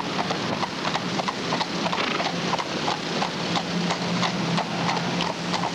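A horse's shod hooves clip-clopping on a paved road in a steady run of hoofbeats, about three to four a second, over a steady low hum.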